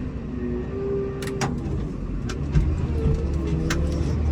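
Komatsu WA270 wheel loader's diesel engine running steadily under load as it pushes snow with a front plow, heard from inside the cab. Several sharp knocks and clacks through the middle of the stretch.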